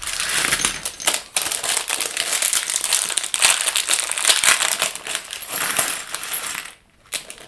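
Loose plastic Lego pieces clattering and clicking against each other as they are rummaged through, a dense rattle that stops near the end, followed by a few single clicks.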